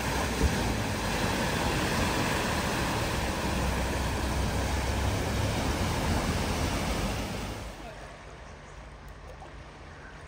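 A vehicle ploughing through deep flood water at a ford: a steady rush of splashing water with a low rumble under it, which drops away sharply about three-quarters of the way through.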